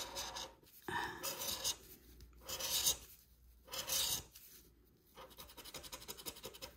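Scratch-off lottery ticket being scratched: a series of separate scraping strokes across the coating, then a quicker run of short scrapes near the end.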